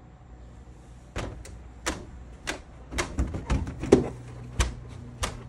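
A glass door being opened and a Labrador retriever pushing in through it: a string of irregular sharp clicks and knocks that starts about a second in and is loudest about four seconds in.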